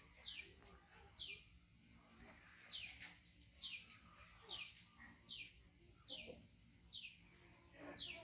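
A bird repeating a short, high call that slides downward, about once a second.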